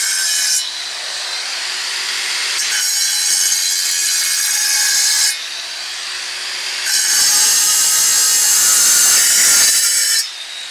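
Hitachi angle grinder cutting a thin slab of natural stone. The blade bites into the stone three times, each cut a loud hissing grind. In between it falls back to the steady whine of the motor spinning free, about a second in and again about five seconds in.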